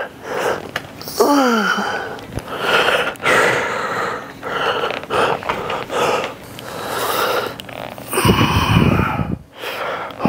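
A lifter's forceful breaths and strained grunts, one with each rep of single-arm pulldowns. Two of them slide down in pitch near the start, and a louder, deeper grunt comes about eight seconds in.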